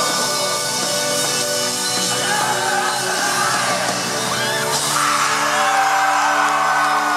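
Live folk-rock band with a drum kit playing loudly, with crash cymbals, while audience members whoop and yell. About five seconds in, a cymbal crash lands and a chord is held ringing as the song nears its end.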